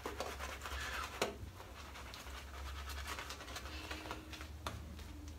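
Shaving brush working thick lather over a shaved scalp: soft brushing strokes. A sharp click comes about a second in, followed by quieter scattered ticks.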